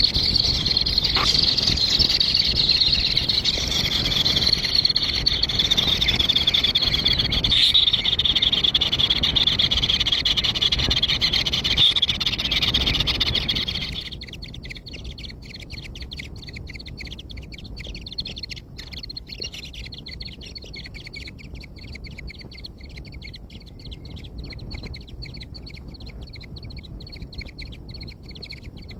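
Dense chorus of many birds chirping together; about halfway through it cuts abruptly to a quieter, fast-pulsing high trilling chorus.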